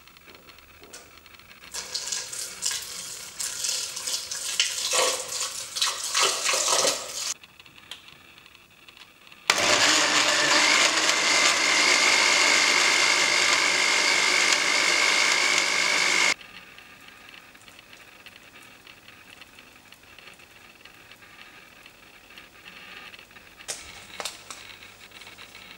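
Electric blender with a glass jar chopping apple and carrot chunks: an uneven, choppy run for about five seconds, then after a short pause a smooth, steady run with a high whine for about seven seconds as the contents turn to purée, cutting off abruptly.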